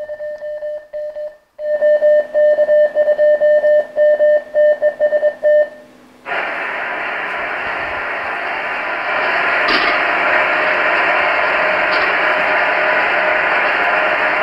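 Recording of a 23 cm aircraft-scatter CW contact played back through loudspeakers: a Morse-code tone keyed on and off from a radio receiver. About six seconds in, the keying gives way to loud steady receiver hiss with a weak tone just audible in it.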